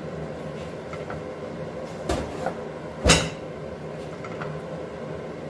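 Two sharp knocks of cookware being handled, about a second apart, the second louder and briefly ringing, over a steady background hum.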